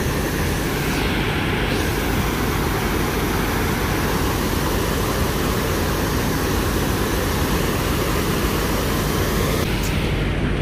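Water rushing over a river weir, a steady, continuous rush of white water, with the low, even hum of the cruise boat's engine underneath.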